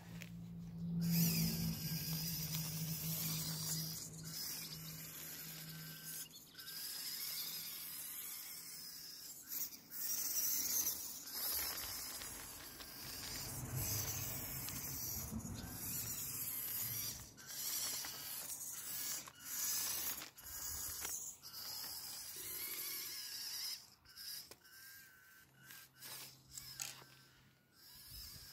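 Small electric motor and gear drive of a 3D-printed 1/16-scale RC tractor running as it drives, its sound rising and falling as it moves and pushes into long grass.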